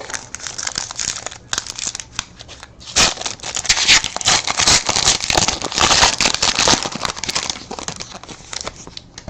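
Trading card pack wrapper being torn open and crinkled by hand, an irregular run of crackling and rustling, busiest in the middle.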